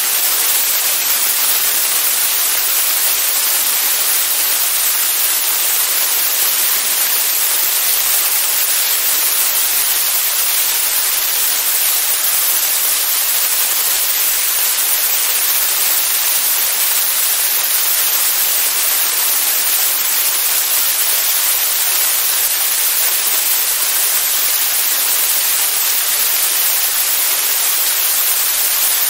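Steady rushing hiss of the airstream over a camera mounted outside on the cowling of a TL-Sting ultralight in cruise flight, even and unchanging, with no distinct engine tone.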